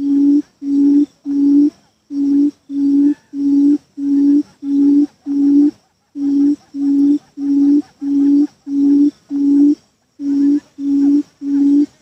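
Buttonquail giving its low hooting call, a single steady note repeated about twice a second in runs of three to six with short breaks between runs. This is the lure call used to draw other buttonquails to the trap.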